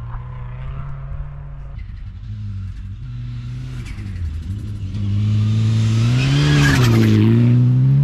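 A 2007 Subaru WRX STI rally car's engine running at steady revs. Then a 2003 Mitsubishi Lancer Evolution rally car approaches, its engine revving up and down and getting much louder as it arrives. It is loudest as it passes about six to seven seconds in, with a rush of sprayed snow and tyre noise.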